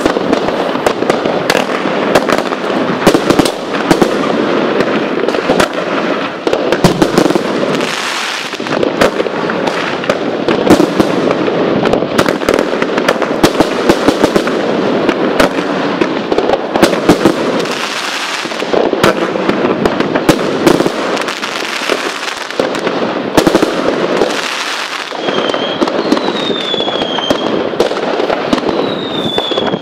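Rubro 'Grande Finale' fireworks cake firing shot after shot in rapid succession: a dense, unbroken run of launches and bursts with crackling stars. Several short whistles glide over the bangs near the end.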